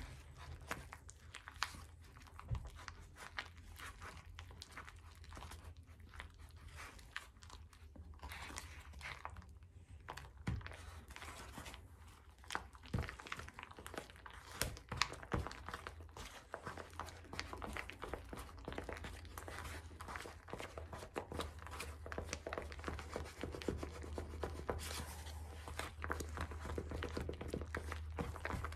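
Thick lightweight spackling mixed with white acrylic paint being stirred in a bowl: a run of irregular scraping, squishing strokes with occasional sharper knocks, over a steady low hum.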